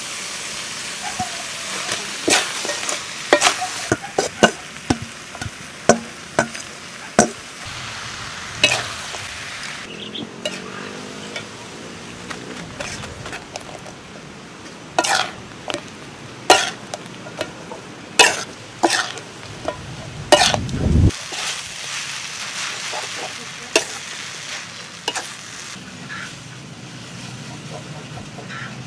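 Glass noodles and prawns sizzling in a metal wok as a metal spatula stirs and tosses them, with sharp, irregular clanks of the utensil against the pan over a steady frying hiss.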